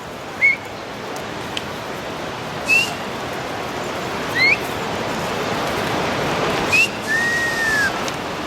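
Sharp whistles: four short upward-flicking notes spaced a couple of seconds apart, then one longer whistle that rises slightly and falls near the end, over a steady rushing noise.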